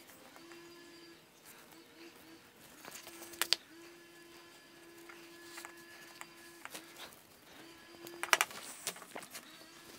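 Number one edge beveler shaving the edges of shoe-upper leather: quiet scraping cuts with two sharp clicks, about three and a half seconds in and again near eight seconds. A faint hum stops and starts underneath.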